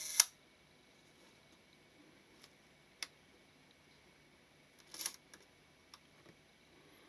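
Mamiya-Sekor 100mm f/3.5 leaf shutter ending a firing with a short whirr and a sharp closing click just after the start. Then a few faint small metallic clicks follow as the exposed shutter mechanism is handled: a sharper one about three seconds in, and a little cluster around five seconds.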